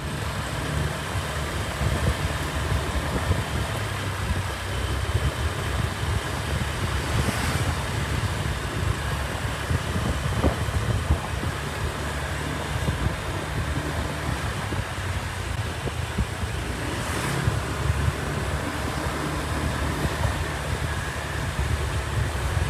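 Wind buffeting the microphone on a moving motor scooter, with the scooter's small engine running underneath as it rides steadily along a street.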